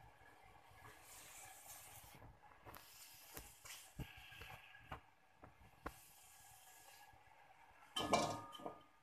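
Faint kitchen sounds: scattered light clicks and knocks, then a louder clatter of dishes or utensils about eight seconds in.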